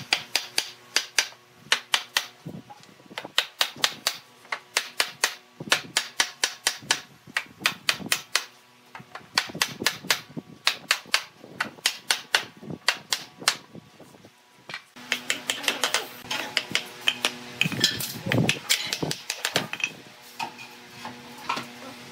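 Wooden mallet knocking the joints of a pine chair frame together: rapid, sharp wood-on-wood taps, several a second, in quick runs with short breaks. About two-thirds through, a steady hum comes in under the knocks.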